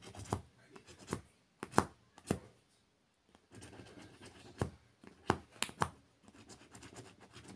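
Scratch-off lottery ticket being scratched: irregular short scrapes and taps, with a brief pause just before halfway.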